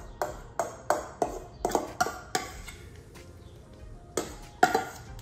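Metal spoon knocking and scraping against a stainless steel mixing bowl as thick pie filling is scooped out, a quick run of ringing clinks about three a second, then a pause and two more knocks near the end.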